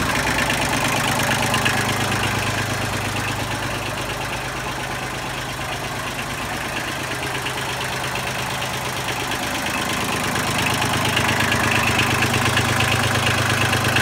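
Kubota L2350's three-cylinder diesel engine running at idle, a little louder from about ten seconds in.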